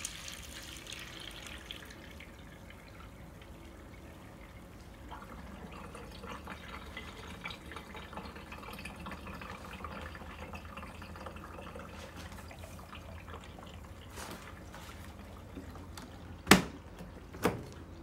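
Twin-tub portable washing machine's wash tub draining, the dirty rinse water running down the drain hose and splashing into a plastic bucket. Near the end come two sharp knocks as the plastic lid is shut.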